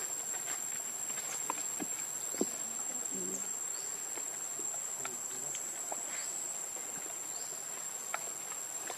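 A steady, high-pitched insect drone, like a cricket or cicada chorus, with scattered soft clicks and rustles close by.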